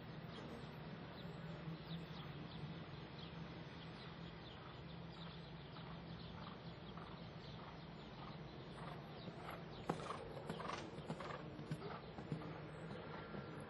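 A cantering horse's hoofbeats on sand arena footing: a string of faint, rhythmic thuds that grow clearer about nine seconds in, over a steady low hum.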